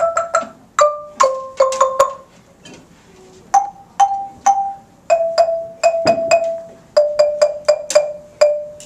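Wooden Orff xylophone struck with mallets, playing a simple melody of single ringing notes in short phrases with brief pauses. Near the end one note is struck several times in a row.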